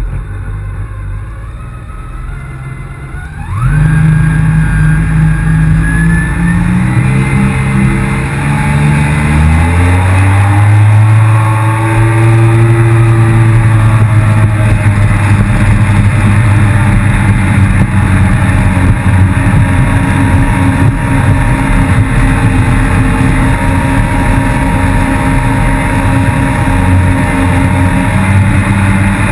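Yamaha FX160 HO jet ski engine running low, then opened up sharply about three seconds in. Its pitch climbs over the next several seconds and settles into a loud, steady full-speed run.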